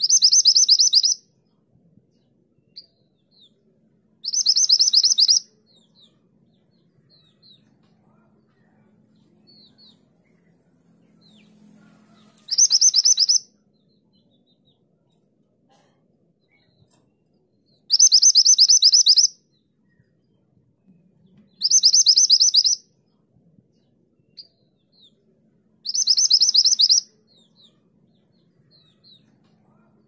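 Minivet (mantenan gunung) singing in six loud bursts, each about a second of very rapid, high trilled notes. Soft single chirps come between the bursts.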